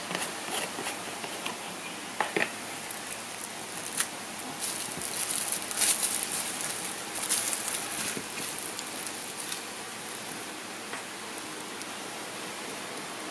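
Plastic lid of a tub of Stikwel wood glue twisted off with a few clicks, then its crinkly plastic inner wrap rustling and crackling as it is pulled open, loudest about halfway through, over a steady hiss.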